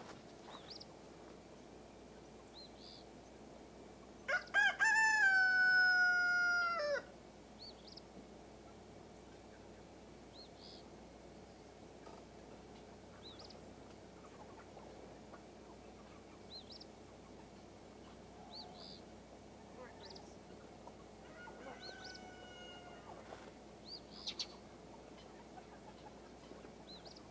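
A rooster crowing, a loud call of about three seconds that rises and then holds while slowly sinking, about four seconds in. A second, fainter crow comes later, with short faint chirps scattered between.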